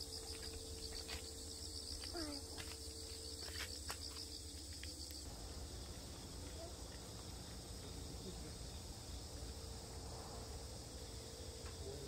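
Insects chirping in a fast, even, high-pitched pulsing trill in grass. The chirping stops about five seconds in, leaving a faint steady outdoor hiss with a low rumble.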